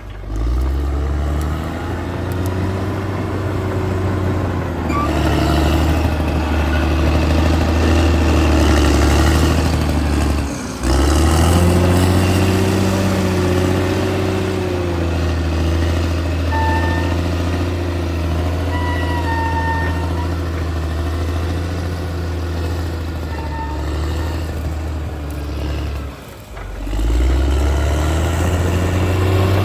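Caterpillar D6R XL bulldozer's diesel engine running steadily under load, with the sound cutting out briefly twice.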